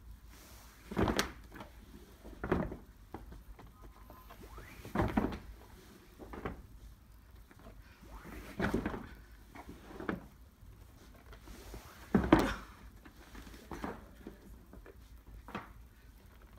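Heavy rugs being flipped over one at a time on a stack, each landing with a dull thud or flap, one every second or two.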